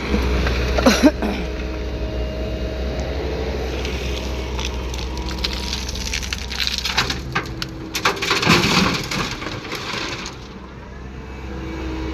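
Komatsu PC200 excavator's diesel engine running steadily, with crushed split stone clattering and cracking as the bucket handles it, a burst about a second in and a longer, louder spell of it toward the end before the noise eases.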